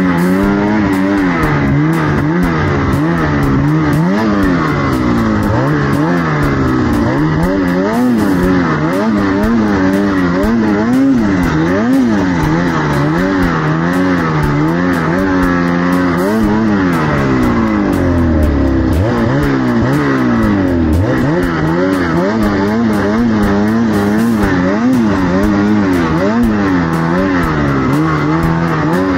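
Snowmobile engine revving up and down over and over as the throttle is worked, riding through deep powder snow.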